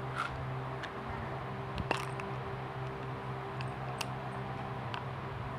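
A few short, sharp clicks and light handling noises over a steady low hum.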